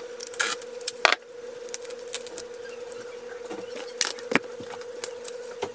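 Close handling noise: scattered sharp clicks and knocks, the loudest about a second in and another about four seconds in, over a steady mid-pitched electrical-sounding hum.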